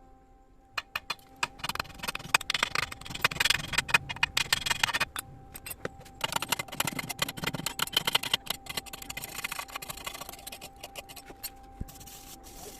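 Electric arc welding crackling and sputtering in two long runs with a short break between, then a few scattered crackles, over a steady faint high whine.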